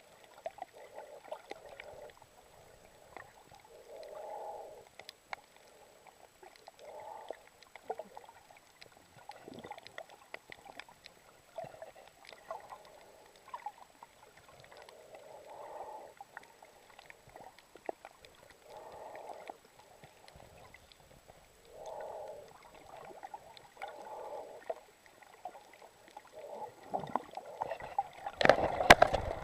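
Sea water gurgling and sloshing around the camera in muffled bursts every few seconds, with small clicks and a louder rush near the end.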